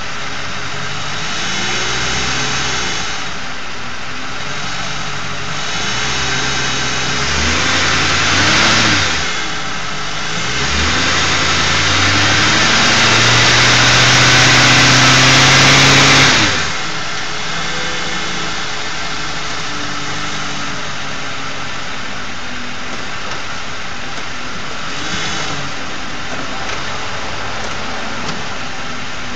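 Ford 4.6 L two-valve V8 idling with a buzz, revved up briefly twice, the second time held for about five seconds before dropping back to idle. The owner traces the buzz to a failed anti-drain-back valve in a Prime Guard oil filter.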